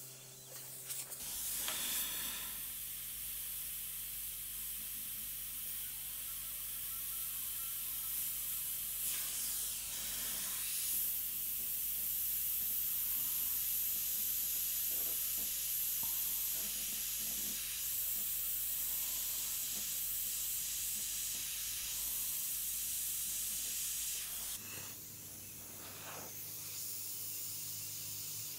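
Airbrush spraying paint: a steady hiss of compressed air, with a few short breaks where the trigger is let off.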